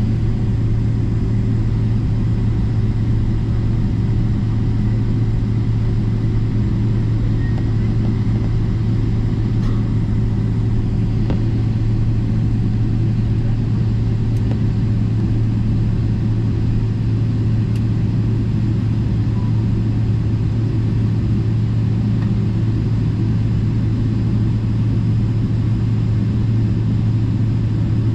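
Steady low rumble and hum inside a jet airliner's cabin as it taxis with its engines running.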